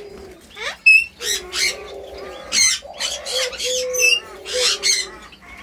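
Caged birds calling: a run of short, harsh squawks and chirps over a low, drawn-out cooing.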